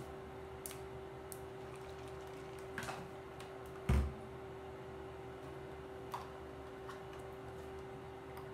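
Scattered light clicks and taps of small objects being handled, with one dull thump about four seconds in, over a steady low hum.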